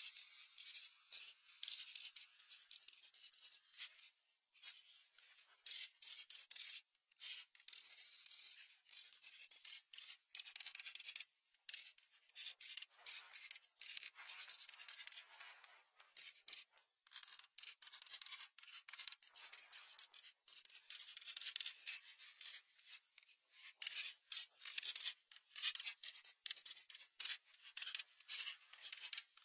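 Crayon rubbing on paper in quick coloring strokes: a dry, scratchy hiss that starts and stops many times a second, with short pauses between runs.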